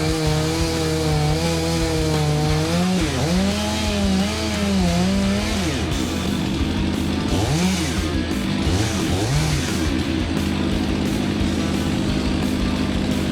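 Two-stroke chainsaw running at high revs while cutting, its pitch dipping under load and recovering several times. Music comes in during the second half.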